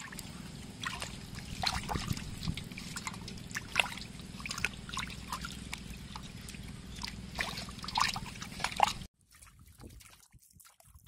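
Water splashing and sloshing in a metal basin as hands rub and turn raw pork ribs, many small splashes and drips over a low steady hum. It cuts off abruptly about nine seconds in, leaving only a few faint splashes.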